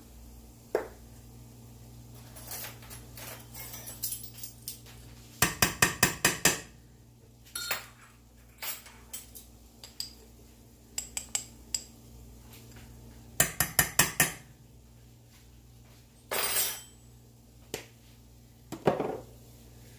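Measuring spoon and spice jar clinking as dried cilantro is measured out and tipped into the skillet. There are two quick runs of about five or six light taps, about six and fourteen seconds in, scattered single clicks, and a short scrape near the end.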